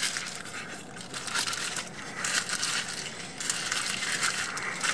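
Paper burger wrappers crinkling and rustling in the hands while burgers are bitten, in several irregular bursts.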